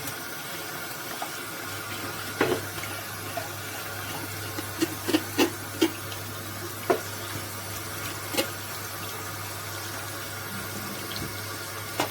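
Tap water running steadily into a kitchen sink while a catfish is being cleaned, with a low hum under it. Several sharp knocks and clatters come through: one about two and a half seconds in, a quick cluster around five to six seconds, then two more singly.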